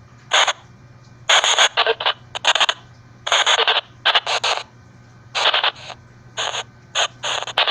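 Choppy white-noise static from an EVP white-noise session: short, uneven bursts of hiss cutting in and out about twice a second, over a steady low hum.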